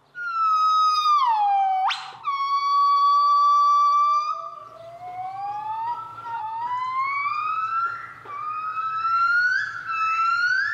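Golden-cheeked gibbons singing in a duet: a long falling note with a quick upsweep, a high held note with a second, lower voice rising beneath it, then a run of short upswept whoops that climb higher and higher. The duet marks territory and social status.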